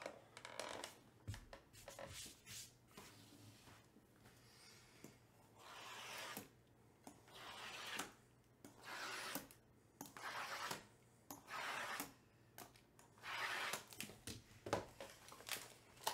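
Plastic shrink-wrap being slit and stripped from a stack of cardboard trading-card boxes, with the boxes being handled: a string of irregular rubbing, scraping swishes.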